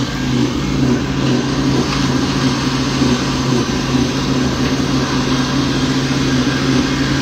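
Electric mixer motor running steadily: a constant low hum under an even hiss.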